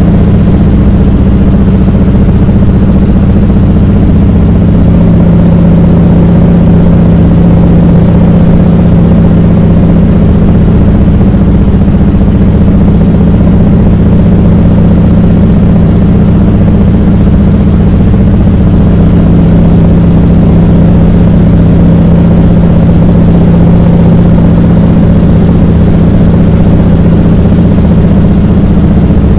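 De Havilland Canada DHC-2 Beaver floatplane's engine and propeller heard inside the cabin during the landing approach: a loud, steady drone with a strong low hum that barely changes pitch.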